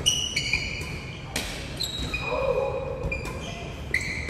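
Badminton doubles rally: sharp cracks of rackets striking the shuttlecock, roughly once a second, mixed with short, high squeaks of shoes on the wooden court floor.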